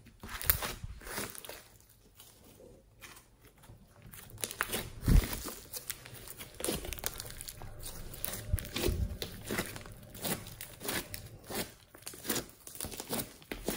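Hands squishing, folding and stretching fluffy slime mixed with foam beads: a run of irregular crackles and pops, with a quieter stretch about two to four seconds in and the loudest pop about five seconds in.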